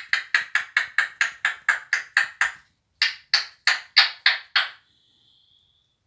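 African grey parrot making a rapid run of sharp, wood-block-like clicks, about four or five a second. After a short break about two and a half seconds in, it gives half a dozen more, slightly slower.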